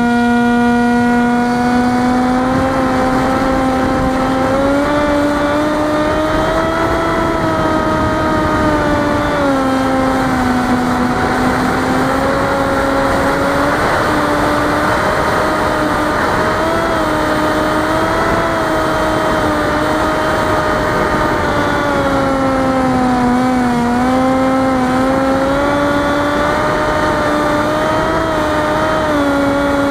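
Electric motor and 6-inch propeller of an FPV flying wing in flight, a steady whine whose pitch rises and falls gently with the throttle, over constant wind rush. The pitch dips about ten seconds in and again near the middle of the second half, then climbs near the end.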